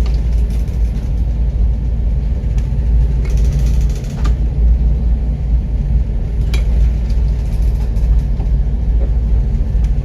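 Loud, steady low rumble with a few faint knocks.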